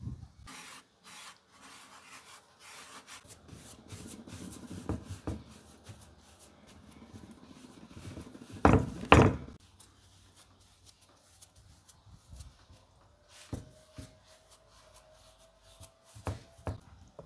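Hands pressing and stretching pizza dough on a semolina-dusted wooden board: rubbing and scraping with light taps, and two loud thumps a little under halfway through. At the start, semolina is poured from a glass jar onto the board.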